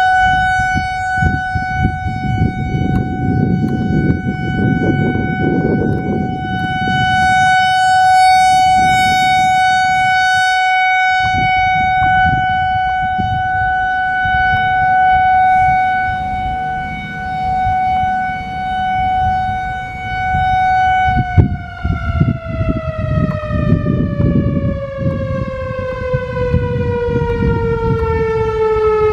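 Whelen WPS-4004 electronic outdoor warning siren sounding its Alert signal, a steady tone that begins to fall in pitch about 21 seconds in as the signal winds down. Gusts of wind rumble on the microphone.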